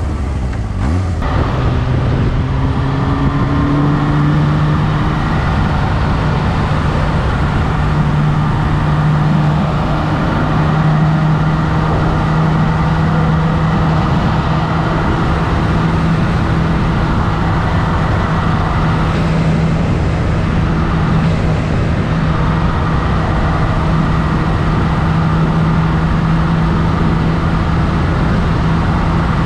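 Kawasaki H2 motorcycle riding at a steady road speed. The engine's note rises briefly about a second in, then holds steady under heavy wind and road noise.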